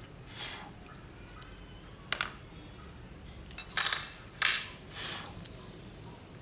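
A small metal part dropped onto a hard tiled floor: a sharp click about two seconds in, then two loud ringing clatters less than a second apart as it bounces and settles, followed by a few light taps.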